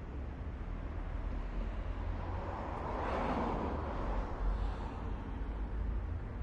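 Steady low city rumble, with a vehicle passing by: its noise swells up over a couple of seconds, peaks in the middle and fades away again.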